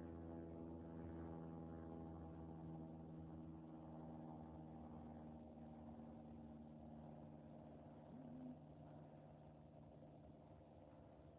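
Faint, steady drone of a small propeller airplane's engine flying low overhead, slowly fading as it moves off. A short chirp cuts in about eight seconds in.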